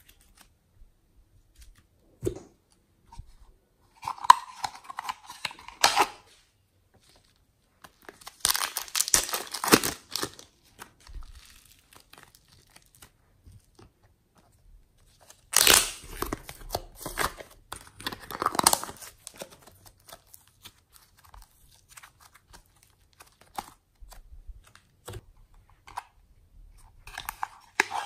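Plastic packets of soft clay crinkling and tearing open in several separate bursts, with quiet gaps between them.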